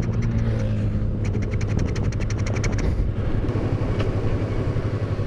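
Yamaha R3 motorcycle's parallel-twin engine running steadily while riding slowly on a gravel road, with a rapid ticking for a couple of seconds near the start.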